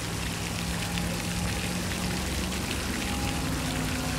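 Steady splashing and pattering of the pond's fountain spray, with a low steady hum underneath.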